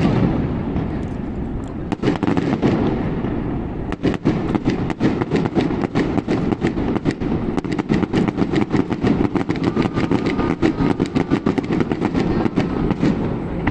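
Aerial fireworks going off: a few separate bangs, then from about four seconds in a dense crackle of many rapid reports a second, easing off near the end.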